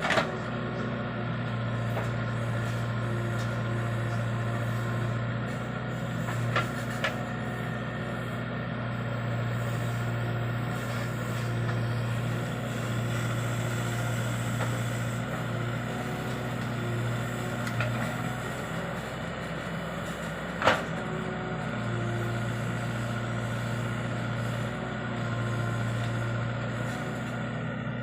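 CASE 770 backhoe loader's Kirloskar four-cylinder turbocharged diesel engine running steadily, with a handful of sharp metallic knocks, the loudest about three-quarters of the way through.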